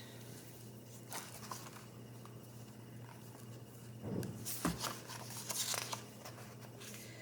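Soft rustling of paper book pages being handled and turned, with a few light clicks, loudest from about four to six seconds in.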